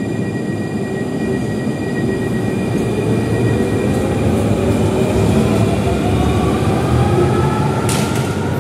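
Alicante tram running on line 3 with a steady rolling rumble; from about three seconds in, its electric traction motors whine and rise steadily in pitch as it picks up speed. A few sharp clicks come near the end.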